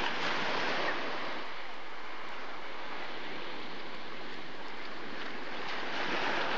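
Ocean surf washing onto the beach, a steady rush of breaking waves that swells louder at the start and again near the end.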